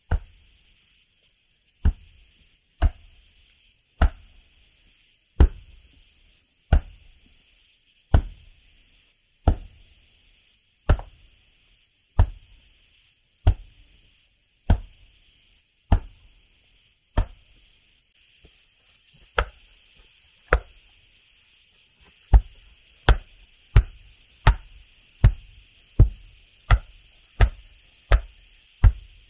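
Steady chopping with a blade: sharp strikes with a thud, about one every second and a quarter, quickening to nearly one and a half a second about three-quarters of the way through. A steady high hiss runs underneath.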